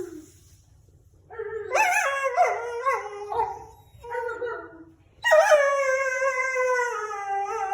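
A dog howling: after about a second of quiet, a wavering howl that rises and falls for a couple of seconds, a short howl, then from about five seconds in a long howl that starts high and slowly sinks in pitch.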